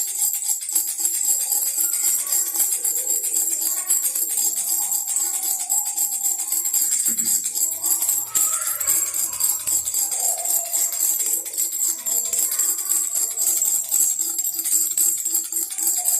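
Baby rattle shaken rapidly and continuously, a bright jingling rattle.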